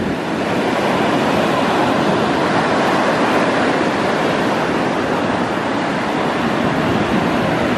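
Ocean surf breaking and washing up a sandy beach: a steady, even rush of water.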